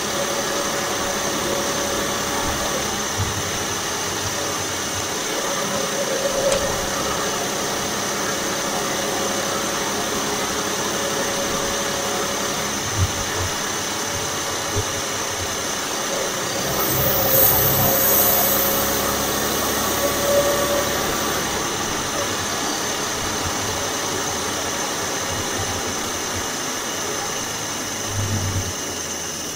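2016 Audi S4's supercharged 3.0-litre V6, with a stage 1 tune and aftermarket intake, running under way and heard from beneath the engine: a steady mix of engine, supercharger and road noise. About halfway through it swells, with a brief louder rush of hiss.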